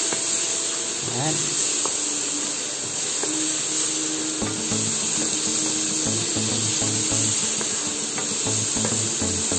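Background music, with a steady hiss of sliced mushrooms frying in butter in a pan underneath it.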